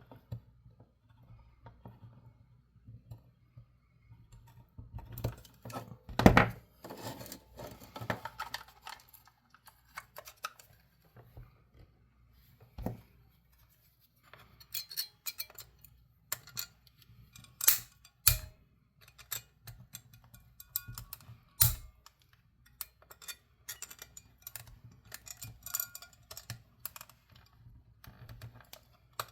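Nippers clicking and scraping against metal battery terminals and the plastic battery compartment of a toy as the old terminals are pried out. The clicks come irregularly, with a few sharper snaps about 6, 18 and 22 seconds in.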